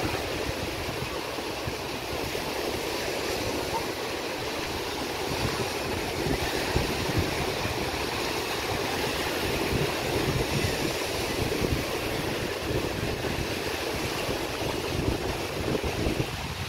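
Steady wash of sea surf on a beach, with wind buffeting the microphone in low gusts.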